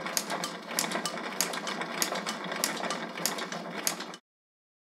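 Rhythmic mechanical clatter: a steady rattling noise with sharp clicks about three a second, cutting off suddenly about four seconds in.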